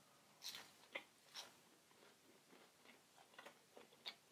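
Faint chewing: a scattering of soft, irregular mouth clicks and smacks.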